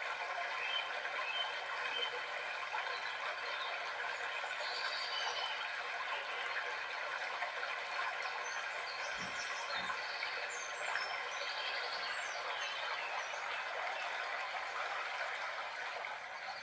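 Nature background ambience: a steady, even rushing hiss like running water, with a few faint, short, high bird chirps near the middle and two soft low thumps about nine seconds in.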